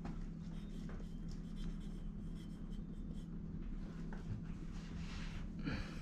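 A marker writing on the side of a spin-on filter canister: faint, short scratching strokes, most noticeable near the end, over a steady low hum.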